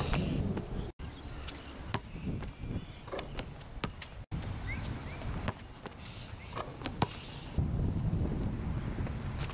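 Basketball bouncing on an outdoor hard court in scattered, irregular thuds as it is dribbled and lobbed, with wind rumbling on the microphone. The sound drops out briefly twice.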